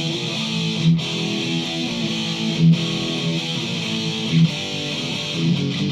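Single-coil electric guitar, a 1982 USA Fender Bullet S-2, playing a heavily distorted metal riff through a Joyo Extreme Metal pedal and a Marshall Origin 50 amp. The riff runs steadily, with short breaks and louder accented hits about a second in, near the middle, and again later.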